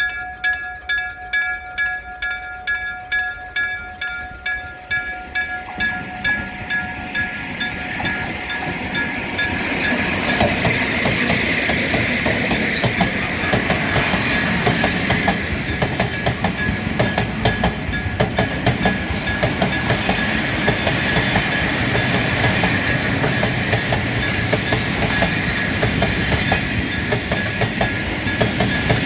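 Level-crossing electric gong (denshō-type bell) striking steadily at about one and a half strokes a second. From about six seconds in, a train's noise builds and it runs over the crossing, its wheels clacking over the rail joints, with the gong still ringing underneath.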